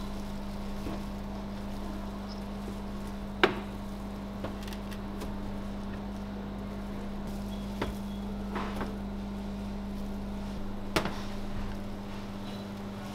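Metal meat trays knocking sharply a few times as they are handled and set down in a refrigerated display counter, loudest about three seconds in. Under this runs a low steady hum, part of which cuts out near the end.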